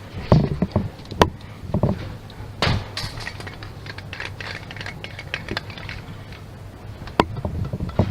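Irregular clicks and knocks of hard objects being handled, over a steady low hum.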